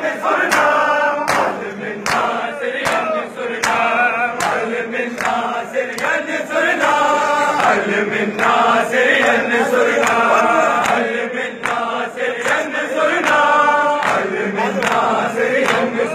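Crowd of men chanting a Shia noha in unison, with a steady beat of sharp two-handed chest slaps (matam) keeping time under the singing.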